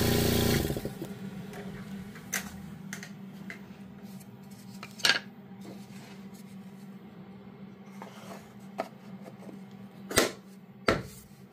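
A few sharp wooden knocks and taps as a small plywood piece is handled and set down on the CNC table, the two loudest close together near the end, over a low steady hum. A louder steady noise cuts off within the first second.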